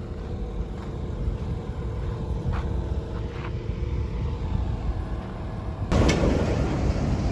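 A motor vehicle's steady low rumble with a faint engine hum. About six seconds in, a sudden louder rushing noise starts and keeps on.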